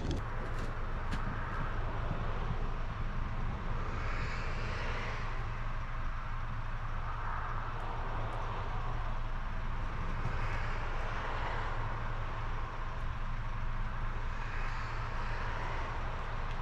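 Scania R410 tractor unit's diesel engine idling steadily, with a soft rushing that swells and fades about every three seconds.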